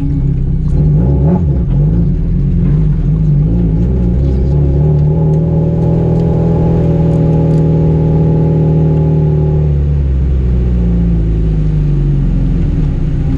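Rally car engine under load on a stage run: revs shifting for the first few seconds, then a long steady pull with the pitch holding high, easing off about ten seconds in and falling in pitch.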